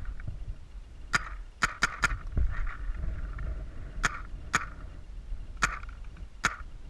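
Paintball markers firing: a quick run of four sharp pops about a second in, then single shots spread through the rest, about eight in all.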